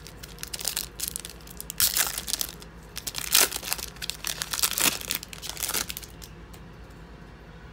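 Foil wrapper of a 2016 Donruss football card pack being torn open and crinkled by hand, in quick irregular crackles, loudest about three and a half seconds in. The crinkling stops about six seconds in.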